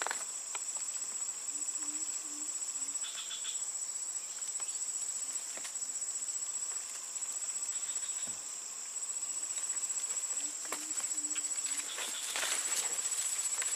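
Steady high-pitched insect chorus, finely pulsing, with a few light clicks and knocks scattered through it.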